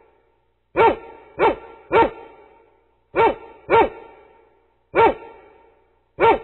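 A dog barking in short groups: three quick barks, then two, then a single bark, and another bark right at the end. Each bark is sharp and trails off over about a second.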